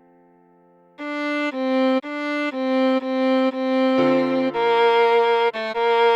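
Viola playing a simple melody: a string of short bowed notes, about two a second, starting about a second in. A lower held note joins underneath about four seconds in.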